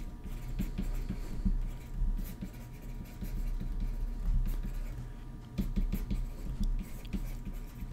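Stylus writing on a tablet screen: quick, irregular taps and light scratches as handwritten letters are drawn, over a faint steady hum.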